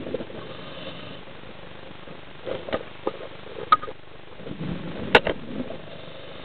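Muffled knocks and sharp clicks heard underwater over a steady hiss: a few between about two and a half and four seconds in, and the loudest just after five seconds, the sound of the action camera being jostled and handled underwater.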